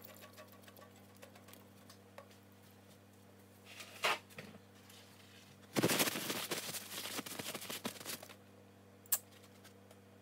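Paper towel rustling and crinkling for a couple of seconds from about six seconds in as wet hands are rubbed dry, with a single faint click or tap about four seconds in.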